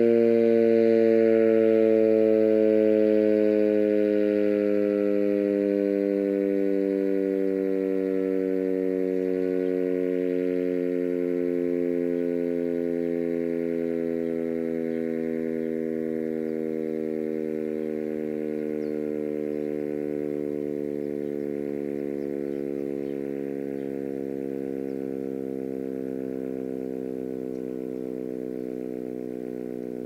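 Sentry 3V8 electromechanical outdoor warning siren winding down, its tone sliding slowly and steadily lower in pitch as it grows fainter.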